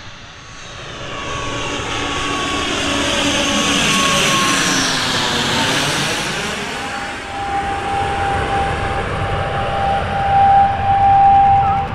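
Twin-turboprop airliner passing low overhead: the engine and propeller roar builds to a peak about four to five seconds in, with its pitch sweeping down as it goes over. It then eases off while a steady high tone holds through the second half.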